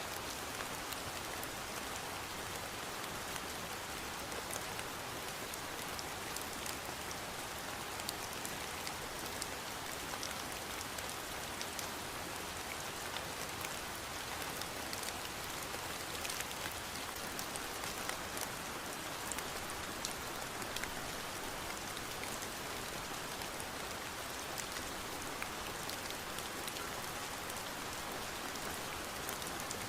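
Steady rain falling on a surface, an even hiss with many small distinct drop ticks.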